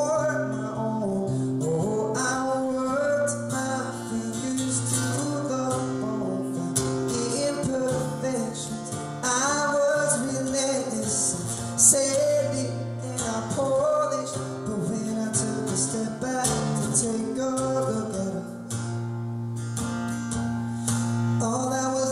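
A man singing to his own acoustic guitar, strummed and picked, in a live solo performance.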